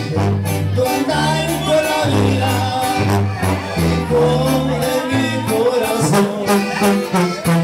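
Live norteño band playing: a sousaphone (tuba) carries a stepping bass line under accordion and guitar, with a voice singing the melody.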